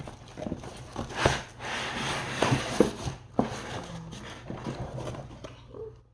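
A cardboard package being opened by hand: rustling and tearing with a few sharp knocks and clicks.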